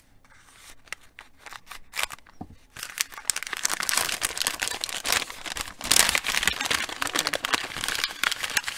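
Scissors snipping through the taped end of a paper gift packet, a few sharp clicks, then loud crinkling and rustling from about three seconds in as the packet is pulled open and handled.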